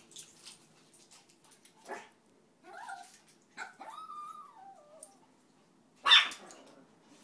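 Small dogs whining: a couple of short whines, then a longer high whine that falls in pitch, followed by one sharp, loud bark a little after six seconds in.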